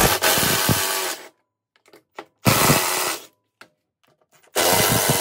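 Power driver running in three short bursts about two seconds apart, backing out the three T30 Torx bolts that hold a mower deck spindle cover.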